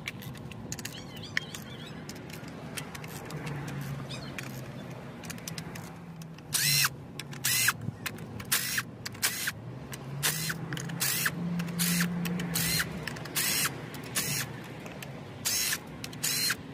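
Valve cover bolts on a Chevy Sonic 1.4 turbo engine being worked loose, first with a few light ratchet clicks, then spun out with a cordless power ratchet. From about six seconds in the cordless ratchet whirs in short bursts, about one a second.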